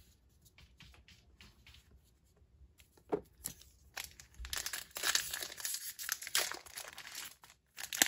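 Foil Pokémon booster pack wrapper being crinkled and torn open: dense crackling starts about five seconds in, after a quieter stretch with a few light clicks.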